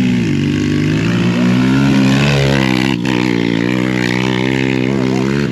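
Off-road vehicle engine running loud under throttle, its pitch wavering, rising and falling as it is revved. The level dips briefly about three seconds in.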